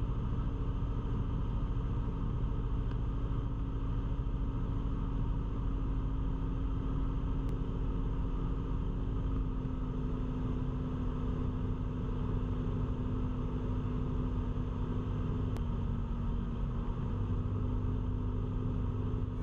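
Cessna 172's engine and propeller droning steadily in the cabin while on approach to land, its pitch dropping a small step about halfway through and again near the end.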